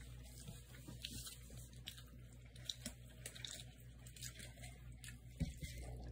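Quiet room tone with a steady low hum and a few faint clicks and rustles.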